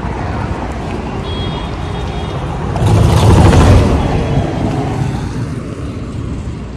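Road traffic noise, with one vehicle passing close that swells and fades about three seconds in.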